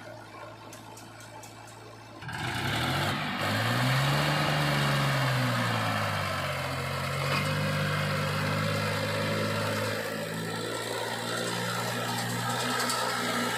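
Heavy diesel engine of the machinery at work. A quieter low hum runs for about two seconds, then a much louder engine comes in suddenly, revs up, drops back and settles into a steady run.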